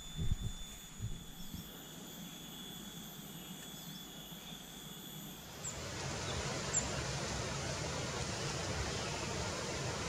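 Faint outdoor ambience: a few soft handling knocks and a steady thin high whine at first, then about six seconds in a steady even hiss with a couple of tiny high chirps.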